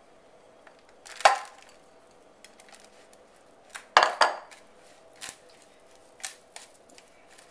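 Kitchen dishes being handled as crumbly dough is transferred by hand into a baking pan: sharp knocks and clatters, a loud one about a second in and a loud double one about four seconds in, with a few lighter taps after.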